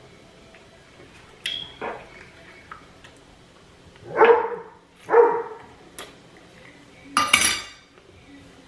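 Eating sounds: cutlery clicking against a plate, with a few short voiced sounds. The loudest comes near the end.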